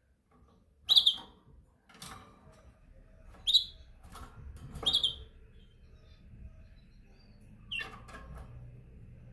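Canary giving short, separate chirps, four in all, a second or more apart, with fainter scratchy clicks between them.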